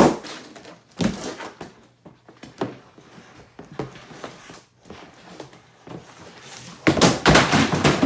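Large batch of clear-glue slime being squished, stretched and slapped by hand: a series of short wet squelches and slaps, heaviest near the end.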